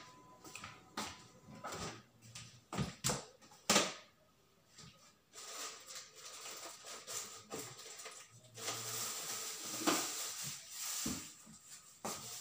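Kitchen items being handled out of sight: scattered knocks and clicks, the loudest about four seconds in, then a steady hiss through the second half.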